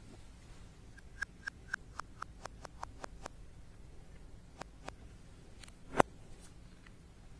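Slime being worked by hand, giving a run of small clicking pops about four a second. After that come a few scattered pops and one sharper, louder pop about six seconds in.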